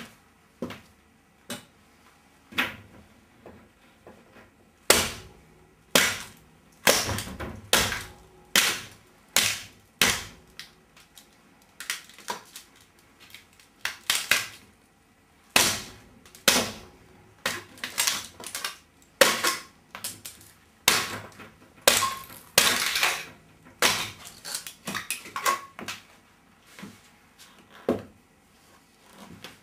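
Boot heels stomping on a mobile phone on a tiled floor: repeated sharp cracks and crunches as the phone breaks, at irregular intervals of roughly a second, with a longer grinding crunch about three quarters of the way through.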